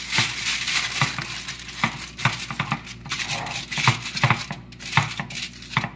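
Aluminium foil crinkling and crackling irregularly as hands press and crimp it down over the rim of a baking dish.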